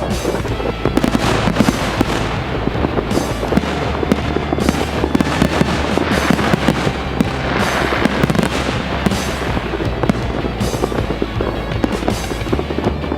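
Fireworks going off in a dense, continuous barrage of rapid crackles and bangs.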